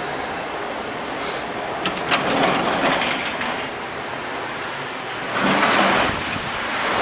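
Glass entrance doors opening, with a few sharp clicks about two seconds in, then a steady rush of outdoor wind on the microphone that swells near the end.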